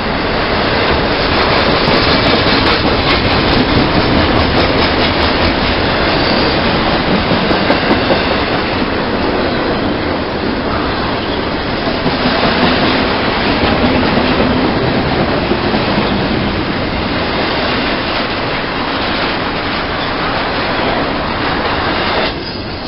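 A train passing close by, its wheels rolling over the rails with sharp clicks in the first several seconds, the rolling noise holding loud and steady.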